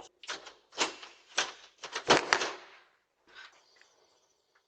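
A run of irregular sharp knocks and clatters, about eight in the first three seconds, then quieter with a faint high steady tone.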